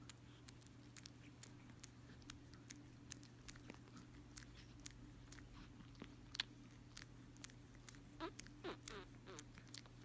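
Near silence: a faint steady hum with many tiny wet mouth clicks and smacks from a drowsy ginger kitten working its mouth, and a couple of short faint squeaks near the end.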